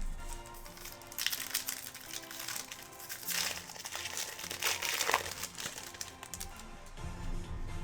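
Crinkling plastic from card packaging or sleeves as trading cards are handled, in several rustling bursts over background music.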